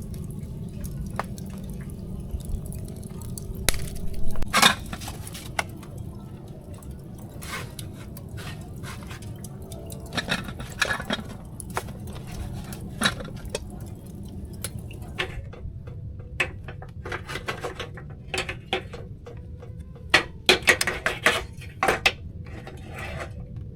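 Metal utensils clinking against cookware amid liquid sloshing and dripping, in irregular taps that bunch up about four seconds in and again near the end, over a steady low rumble.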